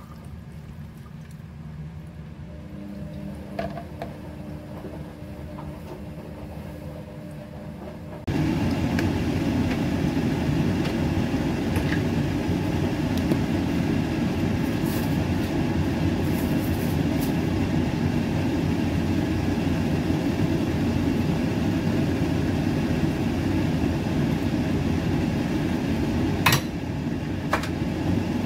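A steady low mechanical hum, much louder from about eight seconds in, when it starts abruptly. A few light clicks come near the end.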